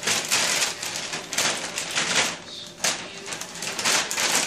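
Plastic L.L.Bean mailer bag crinkling and rustling in irregular bursts as a tiny feral cat moves about inside it.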